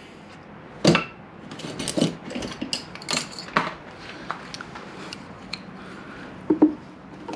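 Metal hand tools clinking and clattering, an irregular scatter of knocks and rattles as one pair of pliers is put down and another picked up.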